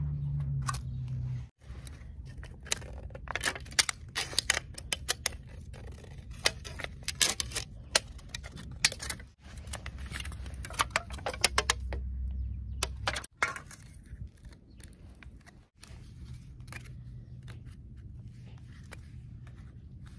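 Thin aluminium of a drink can crinkling and clicking in quick irregular snaps as it is cut and bent by hand, over a low steady rumble. The sound breaks off abruptly a few times.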